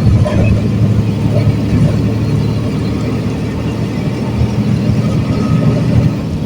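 Mercedes-Benz OF-1721 bus's OM366LA inline-six turbo-diesel engine running with a steady low drone.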